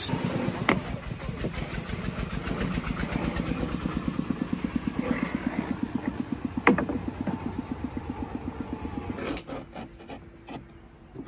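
A small engine running with a rapid, even pulse that swells and fades, then stops about nine seconds in. Two sharp knocks are heard over it, the louder about two-thirds of the way through.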